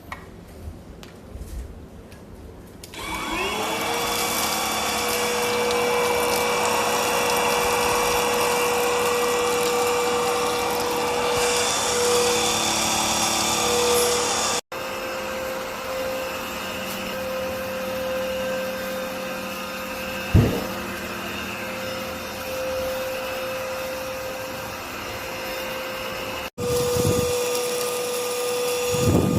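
Cordless stick vacuum cleaner's motor switched on about three seconds in, spinning up with a rising whine and then running steadily with a high whine and airflow hiss. A sharp knock about twenty seconds in, and the sound breaks off briefly twice.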